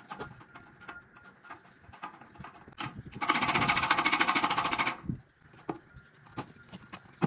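Impact driver hammering in a fast, even rattle for about a second and a half, driving a fastener into sheet-metal coping. Light clicks and taps from handling the metal come before and after, with one knock just after the rattle stops.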